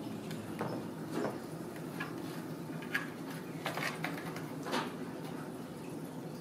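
A kitten playing on cardboard scratch pads: scattered light clicks and scrapes of claws and paws on the cardboard and the hardwood floor, over a steady low hum.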